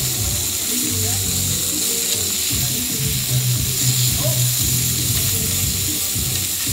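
Bratwursts and hot dogs sizzling on a flat-top griddle, a steady hiss, with music playing underneath.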